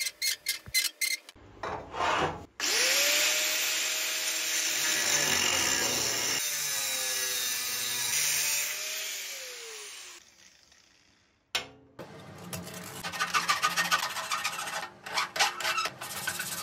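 Light clicks and scratches as the aluminium tube is scribed. An angle grinder with a thin cut-off disc then spins up about two and a half seconds in and cuts through the aluminium tube for several seconds before winding down. In the last few seconds an abrasive pad is rubbed back and forth over the cut tube to clean it up.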